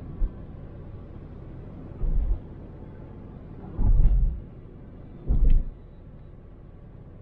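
Car driving with steady low road rumble heard from the dashboard, broken by four low thuds as the wheels go over bumps or joints in the road, the loudest about four seconds in.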